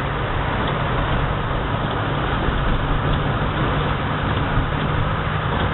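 Car driving with its engine running as a steady low hum under an even wash of road and water noise.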